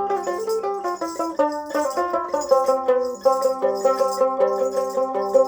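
Dotara, a long-necked plucked folk lute, playing an instrumental passage of quick plucked notes in a running melody, with a descending run about a second in.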